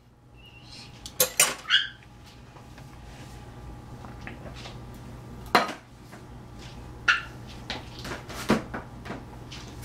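A metal spoon and an empty can clinking against a stainless steel mixing bowl. There are a few separate clinks: three close together about a second in, then single ones spaced a second or more apart.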